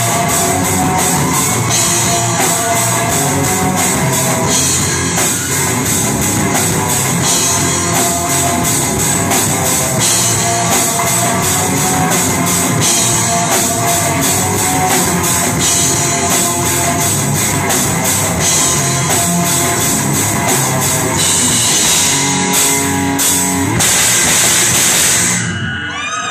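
Live metal band playing on electric guitar, bass guitar and drum kit, with steady drum hits; the song ends shortly before the close.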